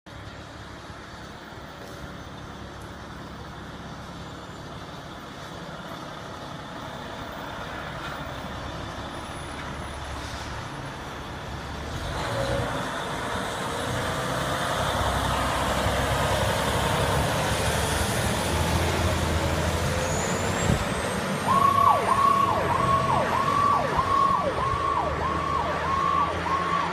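Fire engine pulling away, its engine rumble building as it goes. About two-thirds of the way through, its siren comes on: a rapidly repeating rise-and-drop, about two cycles a second.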